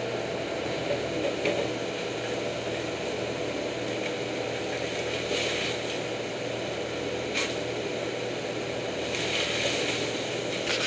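Tree-service wood chipper's engine running steadily at a constant speed, with a few brief hissy rustles on top.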